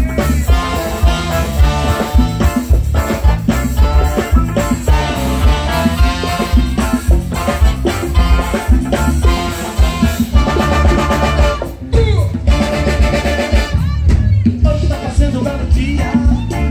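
Live band music played loud through a PA: a brass section of saxophone, trombones and trumpet over drums and bass, with a steady driving beat. The music dips briefly about twelve seconds in.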